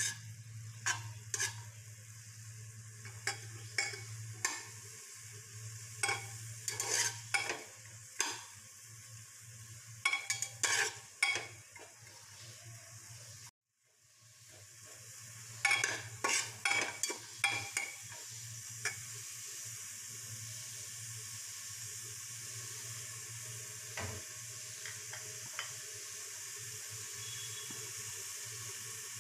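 Chopped onion and garlic being stirred in a pan with a spatula, knocking and scraping against the pan in quick irregular strokes, over a low steady hum. After a short break the stirring resumes briefly, then gives way to a steady sizzle from the pan.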